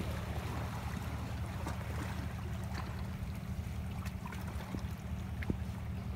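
Seawater trickling and lapping among shoreline rocks over a steady low rumble, with scattered small clicks and ticks.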